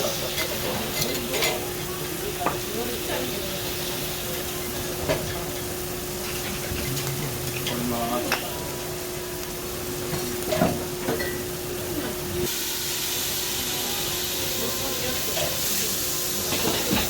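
Garlic frying in hot oil, sizzling steadily, with scattered taps and scrapes of a metal utensil as it is stirred. The sizzle turns abruptly louder and brighter about twelve seconds in.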